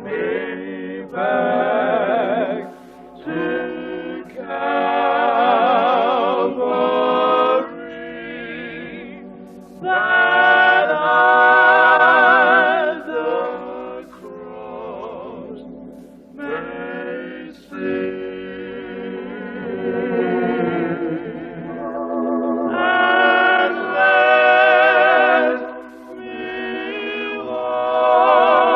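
A choir singing a worship song a cappella, in phrases of a few seconds with held, wavering notes and short breaks between them.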